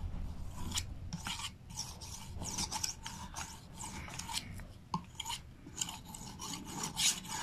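Steel kitchen knife blade scraped back and forth across the unglazed bottom ring of an upturned ceramic mug coated with toothpaste, in quick repeated strokes about two a second: a dull knife being sharpened.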